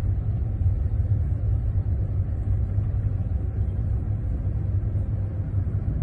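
Steady low rumble of a car heard from inside the cabin while it drives through a blizzard.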